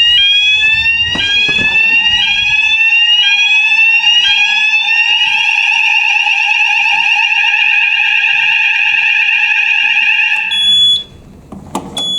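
Fire alarm sounders going off during a routine zone test. One sweeps up in pitch about once a second over a steady lower tone, and about halfway through the sweeping gives way to a steady high tone. All of it cuts off abruptly near the end as the alarm is reset, followed by a couple of short high beeps.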